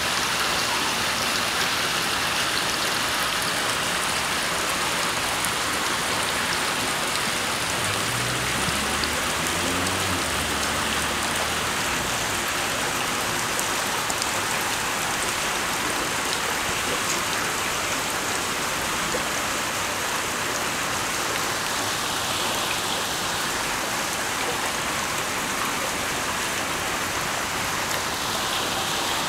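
Water running steadily in a thin sheet over the granite table of the Civil Rights Memorial fountain, an even splashing rush. A faint low hum joins it for a few seconds about eight seconds in.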